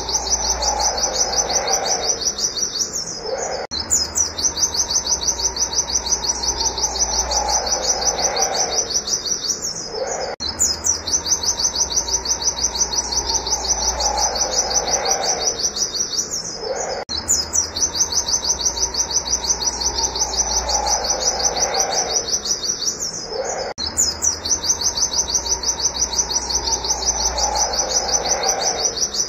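A pleci (white-eye) singing in the 'nembak wit wit' style: long, fast runs of high, sharp repeated 'wit' notes, each run lasting about six seconds and broken by a short pause, over and over.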